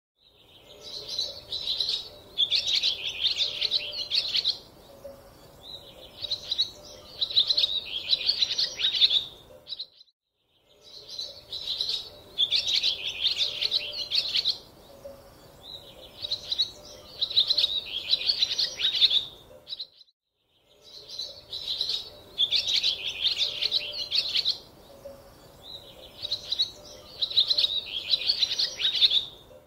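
Small birds chirping in quick clusters of high twittering notes. The same stretch of birdsong, about ten seconds long, plays three times over, with a brief silence between repeats.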